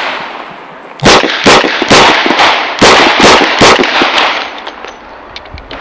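A fast string of .38 Special revolver shots from a Chiappa Rhino, about two a second, beginning about a second in, each shot trailing off in an echo. Fainter, sharper cracks of gunfire follow near the end.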